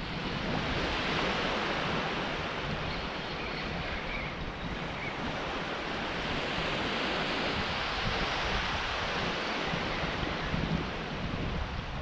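Small waves washing and breaking on a flat sandy shore in a steady wash that swells gently now and then, with wind rumbling on the microphone.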